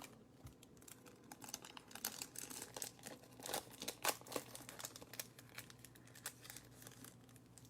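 Faint rustling and light irregular ticks of trading cards being handled and shuffled, with some soft crinkling.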